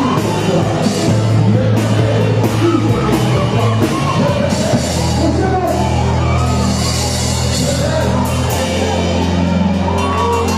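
Loud music with singing. Low bass notes are held for a few seconds at a time.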